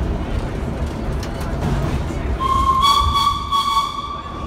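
Vintage IRT subway train running through a station with the steady rumble of wheels on track. A little over two seconds in, a train whistle sounds one high, slightly rising tone for about two seconds, loud over the rumble.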